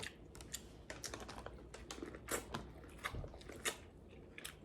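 Snow crab shell being cracked and picked apart while eating: scattered small, sharp clicks and cracks, irregular and faint, with some chewing.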